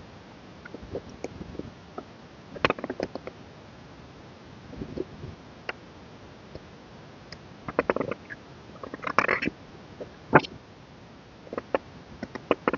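Irregular rustles, taps and clicks of a K-pop album being unboxed by hand, with paper and plastic packaging and inserts handled and set down. A sharp click comes about two and a half seconds in, and a cluster of rustling and knocks around eight to ten seconds in.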